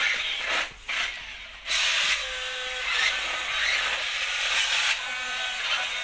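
Remote-control stunt car's small electric motors whirring as it drives across a tiled floor. A short burst at the very start is followed by a lull, and the motors pick up again about a second and a half in and keep running steadily.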